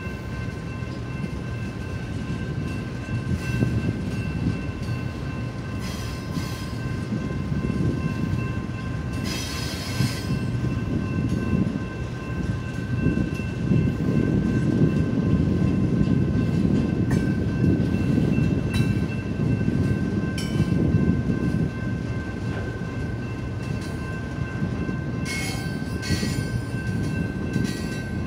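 Double-stack container well cars of a freight train rolling past: a steady heavy rumble of steel wheels on rail, with a steady high ringing whine held throughout. Short high screeches or clanks cut in now and then, most plainly about ten seconds in and again near the end.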